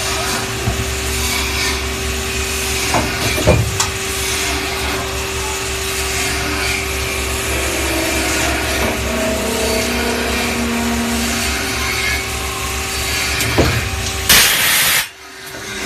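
25AV front-feeding automatic lathe running: a steady machining noise with a constant tone and low hum, a few sharp clicks, and a short loud hiss near the end before the noise suddenly drops away.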